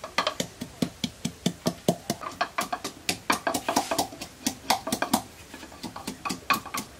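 Wooden pestle pounding in a wooden mortar: quick repeated knocks, about five a second, crushing ingredients into a paste.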